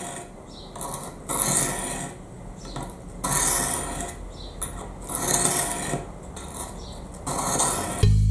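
A steel knife blade being drawn edge-first down a Fallkniven DC3 diamond-and-ceramic pocket whetstone: a rasping stroke about every two seconds, with a lighter one first. Music comes in near the end.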